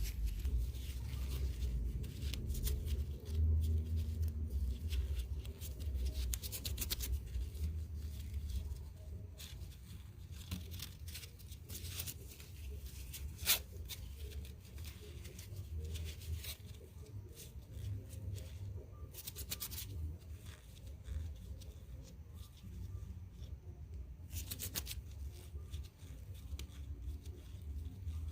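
A paper towel rubbed and scrubbed over the metal threads of an air-compressor fitting, making irregular rustling and scraping strokes, with one sharp click about halfway through.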